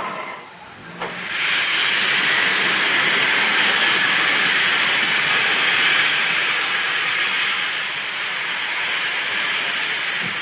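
Class 52 steam locomotive venting steam: a loud, steady hiss that starts suddenly about a second and a half in and holds on.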